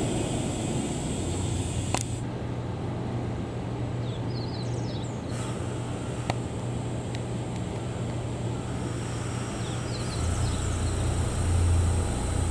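EH200 electric freight locomotive standing at the platform with a steady low hum from its running equipment, which grows louder about ten seconds in. Faint bird chirps come twice.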